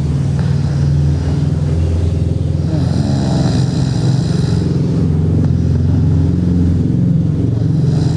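A girl snoring loudly in her sleep: a steady low drone through each breath, with a breathy hiss swelling in and out about every five seconds.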